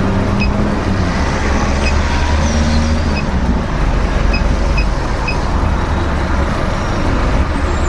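Short electronic beeps from a car wash payment keypad as its buttons are pressed, six or seven in all, over a loud steady low rumble of outdoor vehicle noise.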